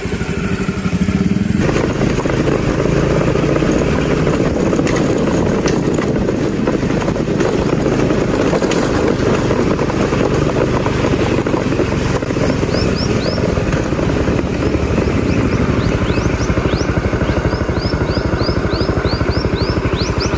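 Motorcycle engine running under load, growing louder about a second and a half in and then holding steady. From about the middle on, short rising chirps are heard above it.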